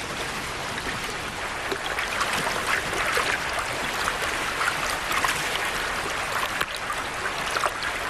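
Shallow river water running steadily, with scattered small splashes through it.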